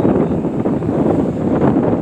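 Wind buffeting the microphone steadily, with the rumble of a moving vehicle on the road underneath.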